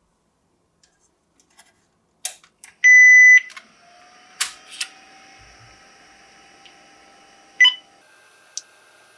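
NEC PC-9821An powering on: a few switch clicks, then one loud, high, half-second beep from its internal speaker. After that a steady whir of its fans and drives spinning up, with a couple more clicks and a short ping near the end.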